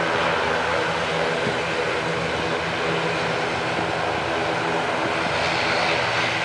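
Two turboprop engines of a DHC-6-300 Twin Otter running steadily, a droning hum with a higher whine and hiss over it. The whine grows louder over the last second or so.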